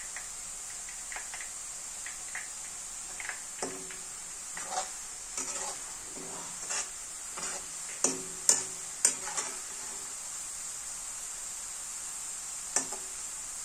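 Shredded potato deep-frying in oil in an iron karahi with a steady sizzle, while a perforated metal ladle stirs and scrapes against the wok. Several sharp metal clinks come about 8 to 9 seconds in, and one more near the end.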